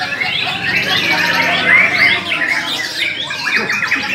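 Many caged songbirds singing at once: a dense, overlapping chorus of rapid chirps, trills and squawks, with no single bird standing out.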